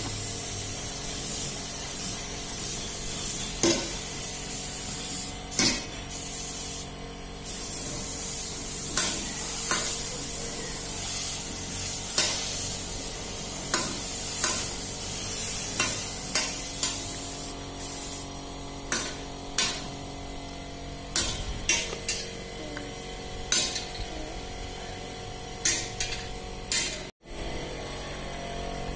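Compressed-air paint spray gun hissing in many short bursts as paint is sprayed onto a truck's body panel, over a steady background hum.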